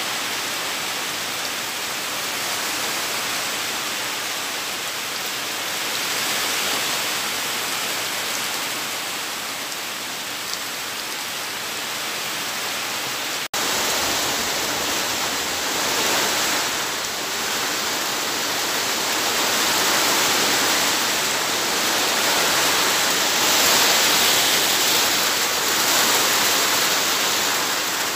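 Heavy typhoon rain pouring down with strong wind, a dense steady hiss that swells louder in gusts in the second half. It breaks off for an instant about halfway through.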